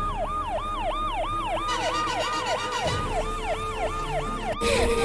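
Police car siren wailing in a fast yelp: a falling tone repeated about four times a second, with a brief break near the end.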